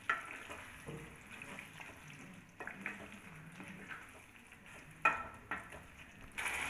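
Wooden spatula stirring thick chicken curry in a frying pan: a faint sizzle, with a few soft scrapes and knocks of the spatula against the pan.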